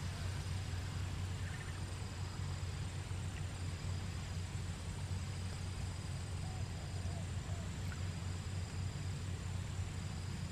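Quiet outdoor background: insects trilling in a steady high tone, with fainter chirps repeating at intervals, over a steady low hum.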